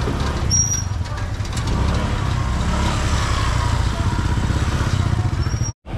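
A motorbike engine idling close by, a steady low rumble. The sound drops out for a moment near the end.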